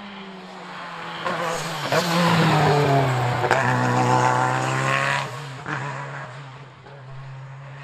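Hill-climb race car engine approaching and passing: the pitch drops as it slows for the bend, then climbs again as it accelerates away. It is loudest in the middle and fades after about five seconds.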